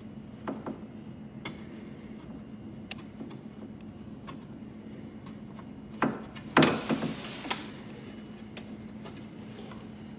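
Light clicks and knocks of tools and parts being handled during a window regulator fit, with a louder clatter and scrape about six seconds in.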